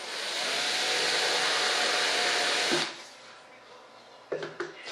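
Hand-held electric drill running for about three seconds as it bores a shallow alignment dimple into the mold surface, then stopping. A few short knocks follow near the end.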